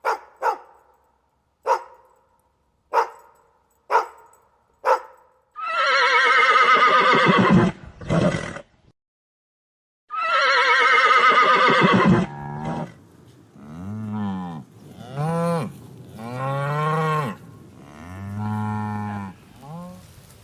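About six sharp knocks, then two loud horse whinnies, followed by a series of about five cattle moos that rise and fall in pitch.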